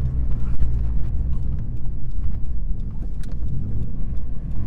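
Scion FR-S's flat-four engine and Greddy exhaust running at a low, steady drone while driving, over tyre and road noise; its note drops at the start and builds again toward the end.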